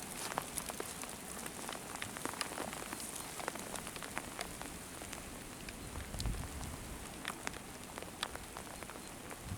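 Rain falling: a steady hiss with many individual drops ticking at random. A brief low rumble comes about six seconds in.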